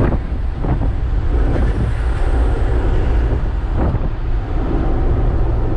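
A truck's engine and road noise heard from inside the cab while cruising: a steady low rumble, with a few light knocks.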